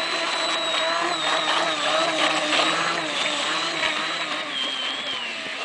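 Electric motor and small propeller of a radio-controlled hydrofoil boat running at speed: a high, steady whine whose pitch wavers with the throttle and drops a little near the end.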